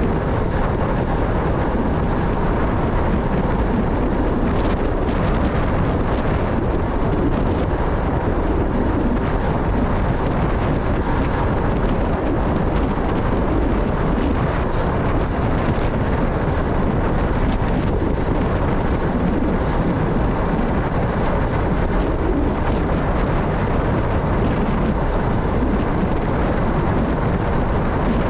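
Motorcycle on the move: steady engine and road noise with wind on the microphone, unchanging throughout.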